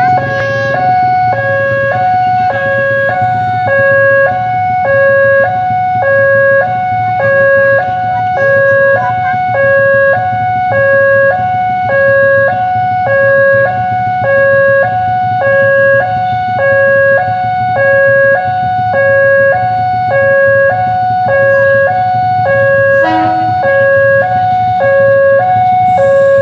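Railway level-crossing warning alarm sounding, an electronic two-tone signal alternating high and low about once a second without a break, the signal that a train is approaching and the crossing is closed.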